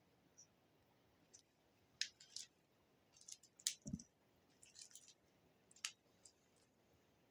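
Scattered faint clicks and crackles at irregular intervals, with one soft thud about four seconds in.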